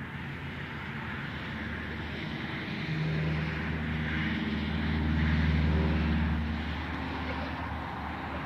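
A passing engine: a low, pitched engine hum swells from about three seconds in, is loudest a little past the middle, then fades away, over a steady background hiss.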